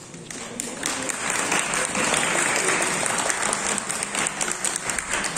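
Applause from a seated audience in a large hall: many hands clapping, building up about a second in and thinning out near the end.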